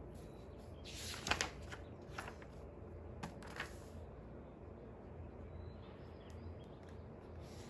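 A few brief rustling and handling noises at a desk, like paper being moved or a page turned, the loudest about a second in, over a steady low hum.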